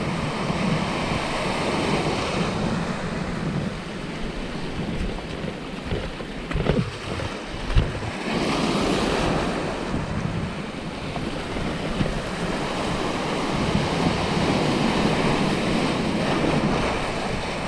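Sea surf breaking and washing over a rocky reef shelf, with wind buffeting the microphone. The wash swells and eases with the waves, and a brief thump comes about halfway through.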